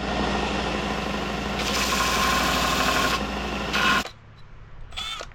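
Electric drill boring a hole into a dense hardwood handle block. The motor runs steadily, turns harsher while the bit cuts from about a second and a half to three seconds in, and stops about four seconds in.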